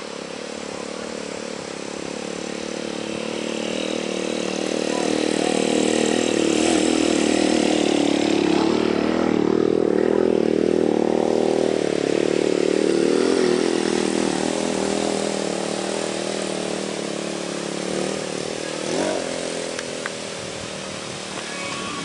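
An engine running steadily, swelling louder over several seconds toward the middle and then fading again.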